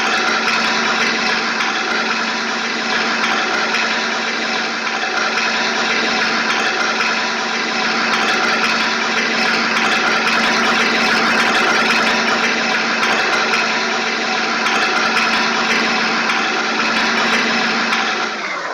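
A vehicle engine running steadily at idle: an even, unchanging hum with a noisy mechanical haze over it. It dips briefly near the end.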